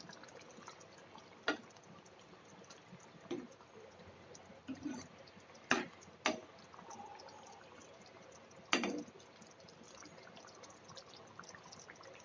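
A steel ladle stirring thick curry that has come to a boil in a non-stick kadai, with faint wet liquid sounds. The ladle knocks sharply against the pan about six times.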